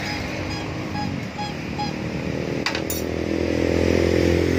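Yamaha R15's single-cylinder four-stroke engine idling through a freshly fitted stainless full-system racing exhaust, a steady beat that grows a little louder toward the end. A sharp click comes about halfway through.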